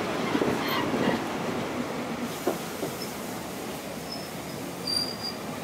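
Wheels of a slow-moving local passenger train rolling on the rails, heard from a carriage window, in a steady rumble that slowly fades. A single knock comes about two and a half seconds in, and faint short wheel squeals near the end.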